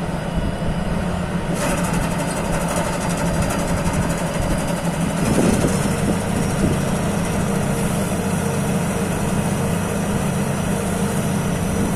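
Thai Seng Yont rice combine harvester running steadily, its engine hum under a busy mechanical rattle. A harsher, hissing layer of machine noise joins about a second and a half in, and the engine note shifts about five and a half seconds in.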